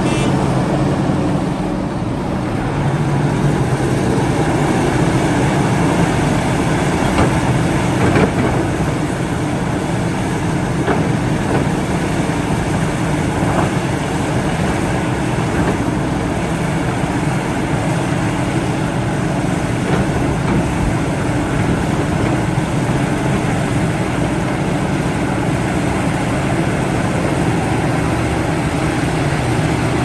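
Heavy diesel engine of a Liebherr 974 excavator running steadily under load while it loads a dump truck, with a few sharp knocks standing out in the first half.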